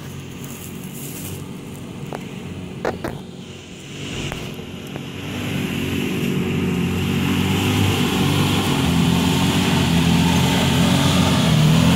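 A Suzuki Vitara's engine pulling the 4x4 up a steep dirt slope, growing steadily louder as it climbs closer, its note wavering near the end. A couple of sharp clicks sound about two and three seconds in.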